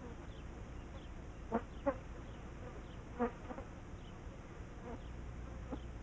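Bush flies buzzing faintly, with a few brief louder buzzes in the first half.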